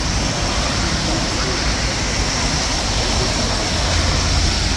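Steady hiss of rain with a low rumble of city street noise.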